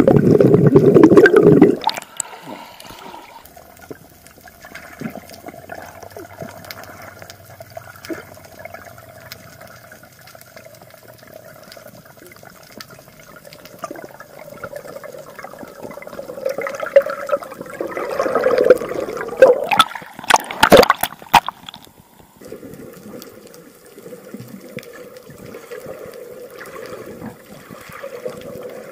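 Muffled water sloshing and bubbling, recorded by a camera underwater. There is a loud surge at the start and another about two-thirds through, with a few sharp clicks in it; between them is a faint steady hiss.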